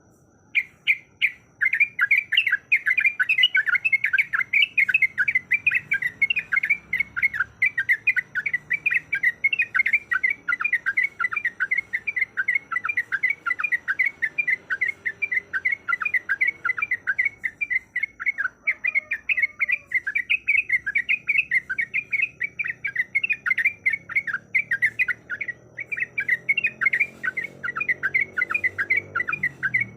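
Yellow-vented bulbul (trucukan) calling in a fast, continuous run of short, sharp chattering notes, the call of a female in breeding condition that is played to rouse males into song.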